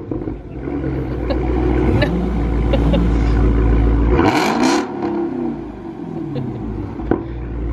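Muscle-car engine running with a loud, deep rumble. About four seconds in there is a short burst of noise, and the engine pitch dips and falls back.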